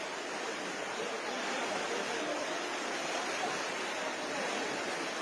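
Steady, even rush of flowing floodwater.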